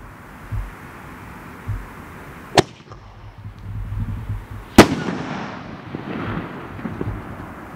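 Sir Lancelot consumer firework going off: a couple of dull thumps, then two sharp bangs about two seconds apart, the second the loudest, each trailed by a rumbling echo.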